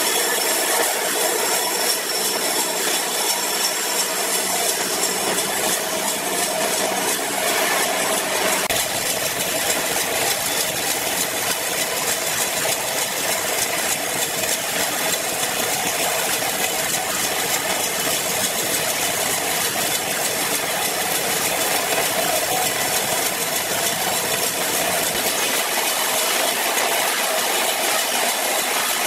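Large horizontal band sawmill cutting lengthwise through a big log: the steady running of the machine and the hiss of the band blade in the wood.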